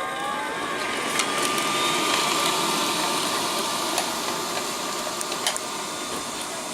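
Liectroux B6009 robot vacuum cleaner running steadily as it sweeps up a patch of loose debris (rabbit food mix, fluff, hay and straw), with a steady whine and hum and several sharp clicks and ticks as bits are flicked and sucked in.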